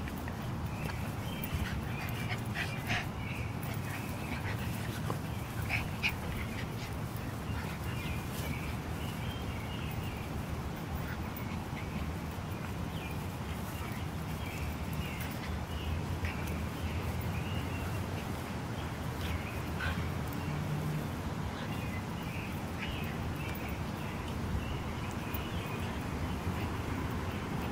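Two puppies play-fighting, giving short scattered yips and grunts over a steady low background noise.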